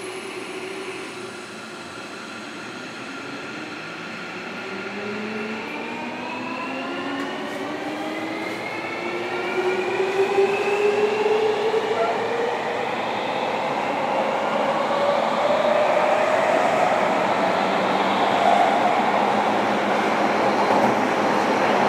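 JR Kyushu 305 series electric train moving off from a stand and accelerating, heard from inside a motor car in a subway tunnel. Several inverter and traction-motor tones rise steadily in pitch from about four seconds in, growing louder, over the rumble of the wheels.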